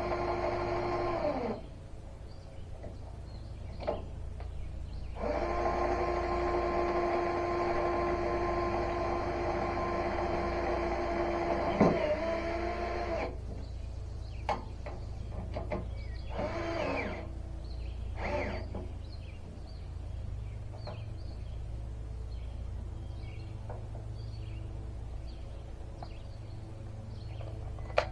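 Electric drill driving self-tapping screws into the sawmill's steel: a short run at the start, then a long steady run of about eight seconds, then a few brief bursts whose pitch sags and recovers as the screw bites. A steady low hum lies underneath.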